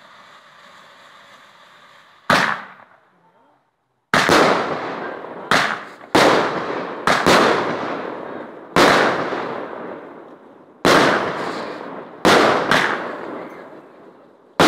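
Garden fireworks: a ground fountain hissing steadily, then one sharp bang. From about four seconds in, a firework cake fires a run of about ten sharp launch bangs, roughly one a second, each trailing off slowly.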